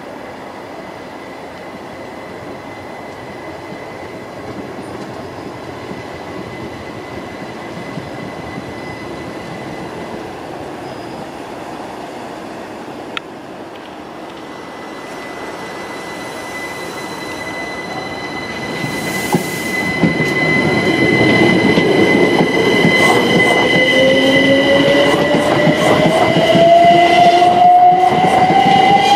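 Class 387 electric multiple unit moving off past the platform. Its rumble builds from about two-thirds of the way through, with a traction-motor whine rising steadily in pitch as it accelerates, and wheels clicking over rail joints near the end.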